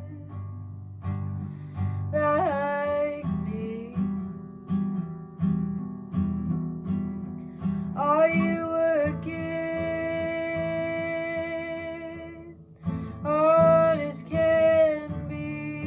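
Acoustic guitar strummed in a steady rhythm, with a voice singing a few long held, wavering notes over it.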